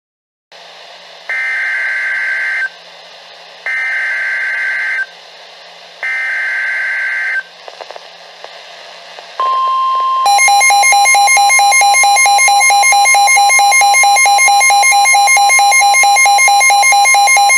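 NOAA Weather Radio alert sequence over a background of radio hiss. First come three short bursts of warbling digital data tones, the SAME header that opens an EAS alert. Then a steady 1050 Hz warning alarm tone starts, joined about a second later by a loud, rapidly pulsing electronic beep.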